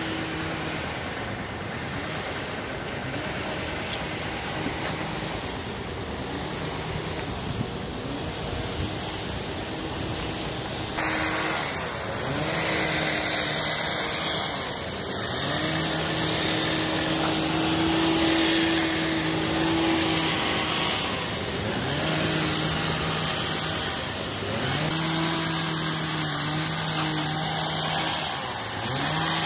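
A small engine revving up, holding a steady high pitch for a few seconds and dropping back, several times over, with a steady hiss that grows suddenly louder about a third of the way in.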